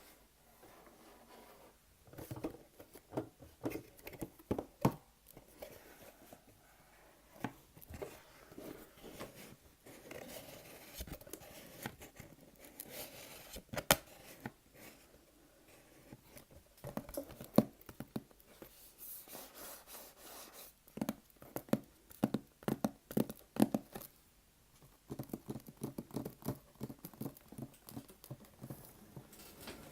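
Close-miked ASMR triggers: objects handled near the microphone, with runs of sharp taps and clicks and stretches of scratchy, rustling noise.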